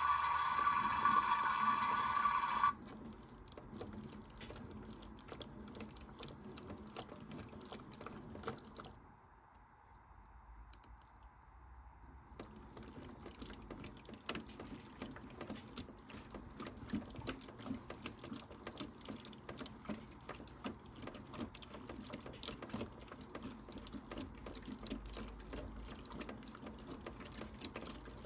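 Toy Bosch Logixx 8 washing machine. A loud steady electronic tone cuts off after about two and a half seconds. Then the small drum turns with water sloshing and rapid clicking, stops for about three seconds, and turns again, as in a wash cycle.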